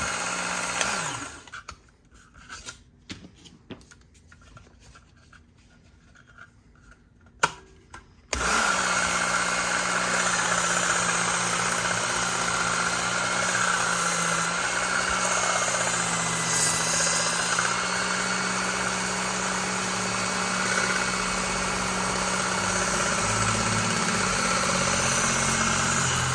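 Work Sharp Ken Onion belt sharpener's motor running, then falling quiet about a second in, with a few small clicks and knocks during the pause. The motor starts again abruptly about eight seconds in and runs steadily, growing louder briefly twice as a knife blade is ground against the belt.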